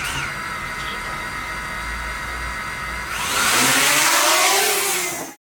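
DJI Mavic Mini drone's motors and propellers whirring at a steady pitch, then spinning up much louder with a rising whine about three seconds in, as in a test after repair; the sound cuts off abruptly near the end.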